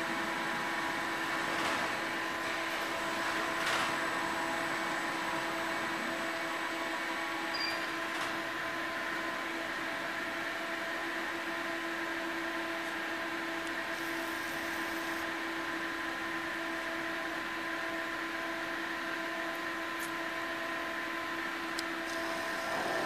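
Electric Still high-mast forklift running, its motors giving a steady multi-tone whine at an even level, with two light knocks in the first few seconds.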